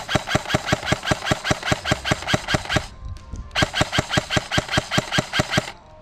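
Airsoft rifle firing on full auto, a rapid string of sharp clicks at about nine shots a second, in two long bursts with a short pause about halfway.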